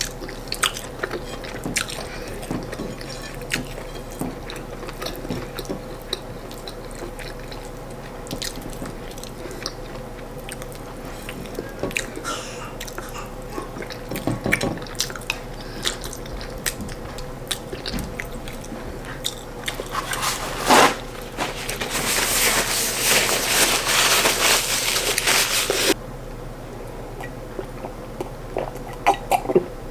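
Close-up mouth sounds of eating: chewing and biting, with many small crunches and clicks, as the host eats corn fufu and khati khati chicken stew. About two-thirds of the way in, a louder steady hiss lasts about four seconds and then cuts off suddenly.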